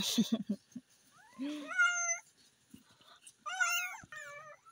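Newborn kittens mewing in high, wavering cries: one about a second and a half in and a few shorter ones near the end, after a few soft knocks at the start. These are the cries of unweaned kittens hunting for their mother's milk.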